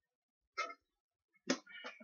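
Two brief mouth and throat sounds from a man who is chugging soda to belch: a short one about half a second in, then a sharper, louder one about a second and a half in that trails on briefly.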